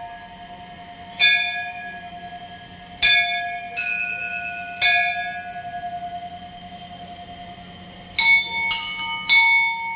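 Temple bells struck about seven times at uneven intervals, with a cluster of quick strikes near the end; each strike rings on with several clear tones that slowly fade.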